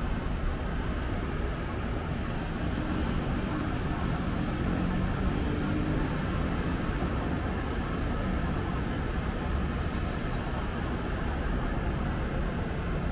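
Steady hum of distant road traffic, motorbikes and cars blending into a continuous low rumble, with one engine's drone standing out for a few seconds around the middle.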